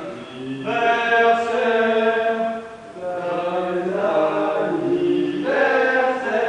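Voices chanting slowly in a requiem-style chant, holding long notes and moving to a new pitch every second or two, with a short break a little before halfway.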